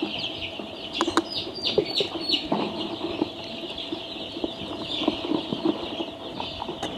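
A large flock of week-old chicks peeping steadily, a dense chorus of high cheeps with some louder single calls in the first half. A few light clicks sound about a second in.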